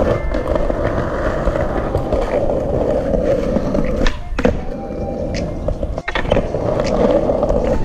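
Skateboard wheels rolling over concrete, a steady rolling noise, with a few sharp knocks from the board about four seconds in and again about six seconds in.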